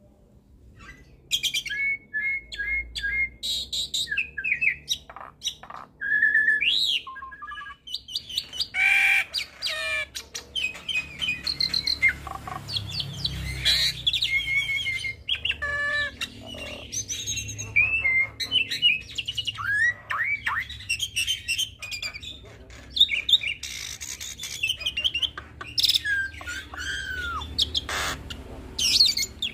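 Hybrid starling, an Asian pied starling × Nias hill myna cross, singing a continuous, varied song of clear whistles, quick repeated chirps, sliding notes and harsh squawks.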